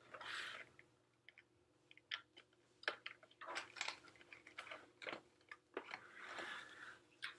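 Pages of a spiral-bound picture easel being flipped over, with paper rustling in a few short swishes and scattered light clicks and knocks from handling it on a table; faint.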